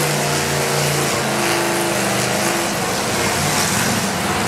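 Demolition derby car engines running and revving together, their pitch shifting about a second in, over a constant wash of arena noise.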